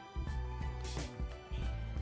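Background music with a low bass line and a few percussive hits.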